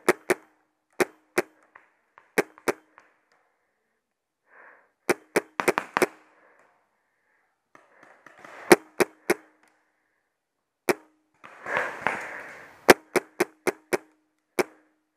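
Paintball markers firing: sharp pops, some single and some in quick strings of three to six, the nearest shots followed by a brief low ring.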